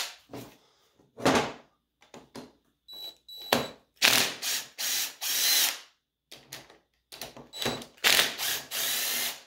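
Cordless drill-driver with a 7 mm socket running in several short bursts of a second or two, backing out the long through-bolts of a Bosch starter motor.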